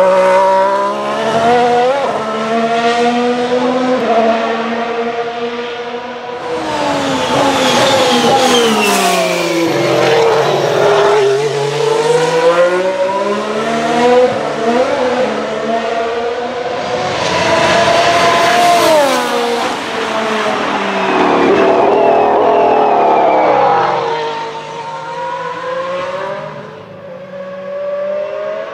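Ferrari SF71H Formula 1 car's 1.6-litre V6 turbo hybrid engine (Ferrari 062 EVO) running hard on circuit, its pitch repeatedly climbing and dropping through gear changes. It grows louder twice as the car comes closer and fades near the end.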